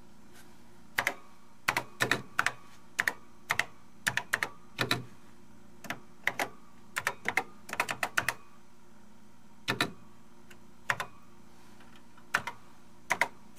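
Typing on a Radio Shack TRS-80 Model III's built-in keyboard: irregular key clicks, many in quick pairs, with short pauses between bursts, over a faint steady hum.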